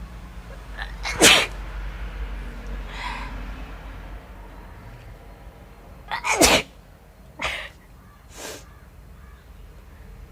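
A woman sneezing, set off by sniffing chilli powder. One loud sneeze comes about a second in, another loud one about six seconds in, then two shorter, fainter ones.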